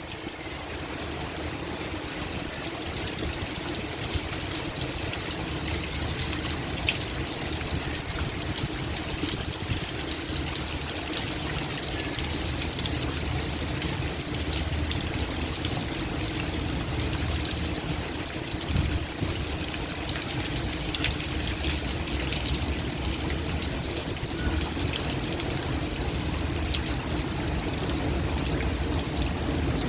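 Heavy rain falling in a steady downpour, with many separate drop hits over a continuous wash of water.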